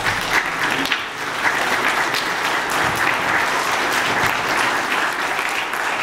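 Congregation applauding: many hands clapping together, swelling in about a second and holding steady.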